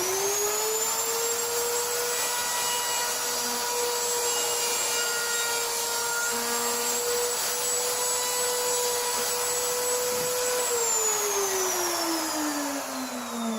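Router fitted with a chamfer bit spinning up and running at a steady high whine while chamfering an oak block, then switched off about ten and a half seconds in, its pitch falling as it winds down.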